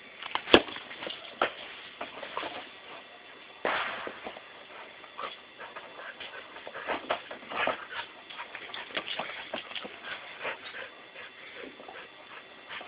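Border Collie making many short, separate dog sounds while playing with a soccer ball. A sharp knock about half a second in is the loudest sound.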